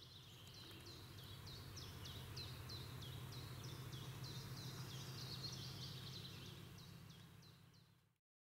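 A small songbird singing a long, even run of short, high, down-slurred notes, about three a second, over a faint steady low hum; the sound fades and cuts off about eight seconds in.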